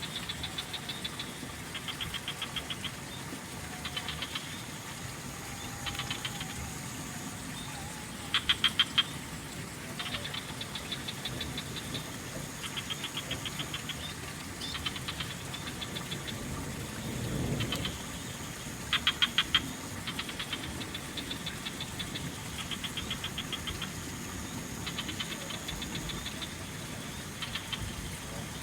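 Frogs calling in rapid pulsed trains, one answering another every few seconds, the loudest bursts about a third and two thirds of the way through. Insects keep up a steady thin high whine underneath, with a low rumble that swells briefly around the middle.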